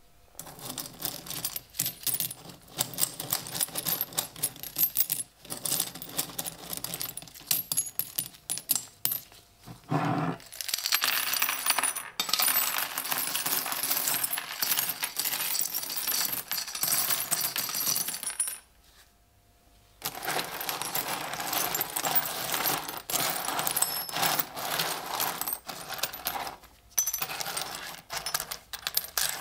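Old metal coins clinking, with scattered clicks at first, then a long dense clatter as a heap of them is poured from a brass container onto a wooden board. After a brief near-silent break about two-thirds of the way through, the coins clink and slide again as a gloved hand stirs through the pile.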